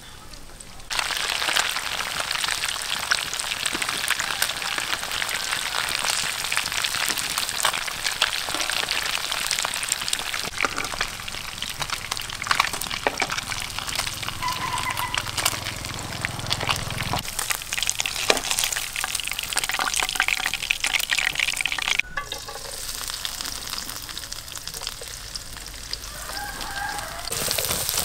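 Battered fish pieces deep-frying in hot oil in a frying pan: a dense crackling sizzle that starts about a second in and turns quieter about three-quarters of the way through.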